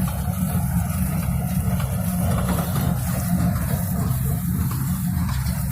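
Tractor engine running steadily under load, with most of its sound in a low, even rumble.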